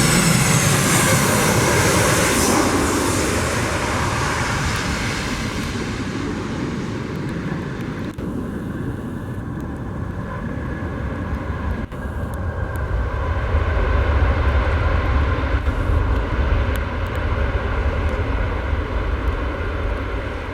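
Boeing 737-700 jet engines running. A loud hiss fades over the first several seconds, then a low rumble swells in the middle and eases off near the end.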